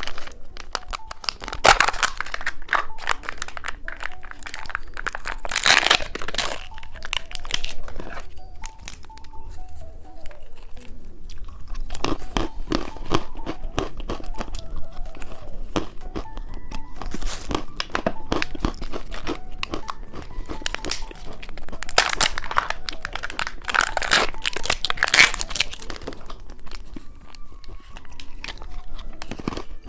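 Close-up crinkling and tearing of plastic candy packaging, with crunching, as a candy surprise egg is opened; background music plays underneath. The crackle comes in dense flurries, loudest in a few bursts.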